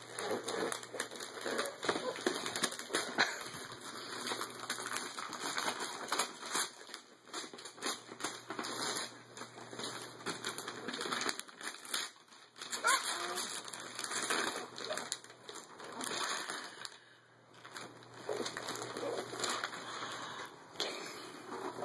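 Gift wrapping paper tearing and tissue paper rustling as a present is unwrapped, in many short, irregular crackles.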